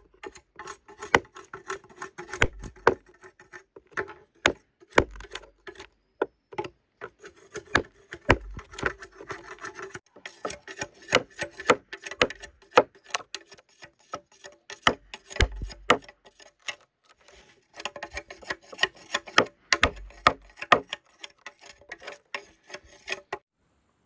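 Hand work on wood or bamboo: many irregular, sharp wooden knocks mixed with scraping and rubbing, several a second, stopping abruptly near the end.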